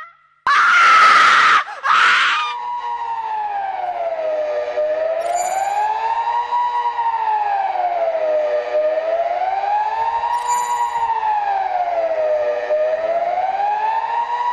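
Civil defense siren wailing, its pitch rising and falling smoothly about once every four seconds. A loud, harsh burst comes just before it, about half a second in, and there are two brief high chirps during the wail.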